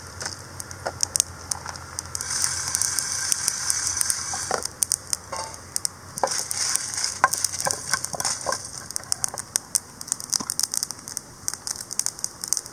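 Whole spices (coriander seeds, peppercorns, cumin, fennel, cloves and dried red chillies) dry-roasting in an aluminium pan and stirred with a wooden spatula. The seeds rattle and scrape across the metal in many small clicks, with two longer stretches of scraping.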